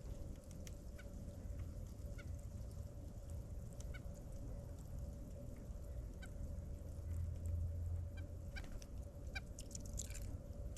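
Birds giving short chirps at irregular intervals, busier near the end, over a steady low rumble and a faint steady hum.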